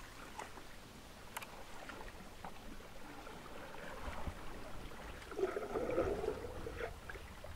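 Faint splashing and trickling of a kayak paddle dipping into calm water, with small drips and clicks, getting a little louder about five seconds in.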